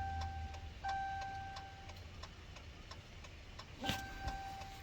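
Steady ticking of the 2018 Ram's hazard-light flasher, about two to three ticks a second, with a one-pitch electronic beep sounding twice, each beep about a second long, the second near the end. A low hum fades out about halfway through.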